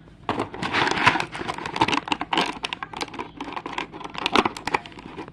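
Plastic toy packaging crinkling and rustling, with a run of irregular clicks and taps, as a toy figure is handled and put back into it.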